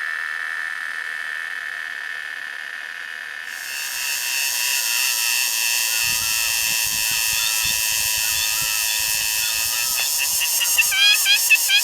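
Insects singing: a steady high buzz gives way, about three and a half seconds in, to a louder, harsher buzz. Near the end a rhythmic pulsing call joins in, about two pulses a second.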